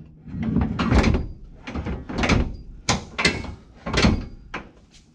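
MORryde sliding cargo tray being shoved in and out on its metal slide about five times, each run rumbling and ending in a knock, with a sharp click near the end. The tray's latch is not catching: the slide binds and stops, which the installers put down to the tray frame being out of square.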